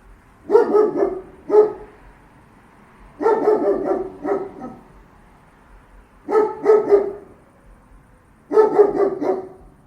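Large German shepherd guard dog barking in four bouts of two or three deep barks each, with short pauses between bouts.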